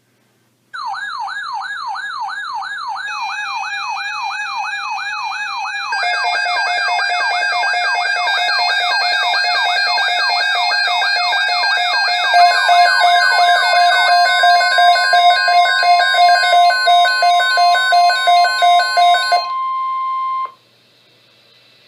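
Electronic siren sweeping rapidly up and down in pitch, a little over two cycles a second, with more steady alarm tones joining it in layers. Near the end the siren cuts out, leaving a single steady high tone for about a second before it stops abruptly.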